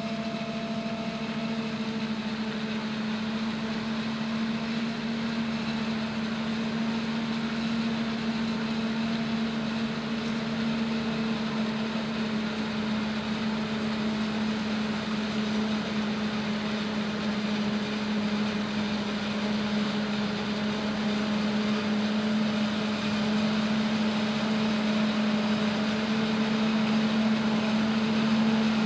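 New Holland FR9060 forage harvester chopping standing maize through a Kemper 460 header, running together with the Fendt tractor and silage trailer alongside it, with a steady mechanical drone carrying one unchanging hum. It grows slightly louder toward the end as the machines come closer.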